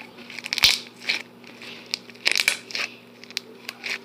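Fluffy homemade slime being squeezed and worked in the hands, giving short bursts of crackling and popping clicks roughly once a second.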